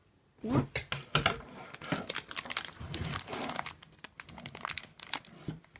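Crinkly wrapping on a jar of sweets being handled and crumpled: a dense, irregular run of crackles and rustles that starts about half a second in.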